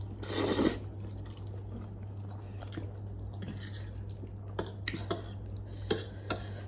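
Eating noodles: a short loud slurp about half a second in, then quieter chewing with a few small sharp clicks near the end. A steady low hum runs underneath.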